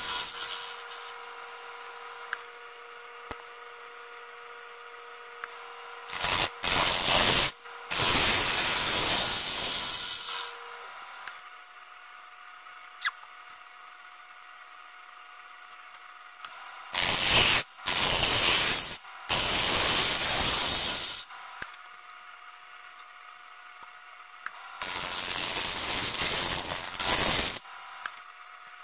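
A turning tool cuts into a wooden blank spinning on a wood lathe, in several noisy bursts of one to two and a half seconds each. Between the cuts the lathe's motor hums steadily.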